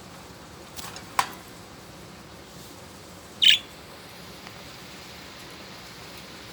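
A budgerigar gives one short, sharp chirp a little past halfway, after two quick faint clicks about a second in.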